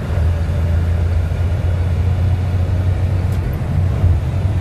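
Tow truck driving: its engine's steady low drone and road rumble, heard from inside the cab.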